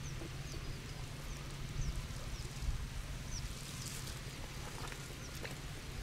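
Outdoor background: a low steady rumble with a scattering of faint, short, high chirps that slide down in pitch, several seconds apart.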